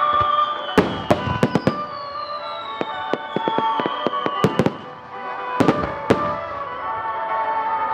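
Aerial fireworks bursting in clusters of sharp bangs and crackles, about a second in, around three and four and a half seconds, and again near six seconds. Background music plays underneath.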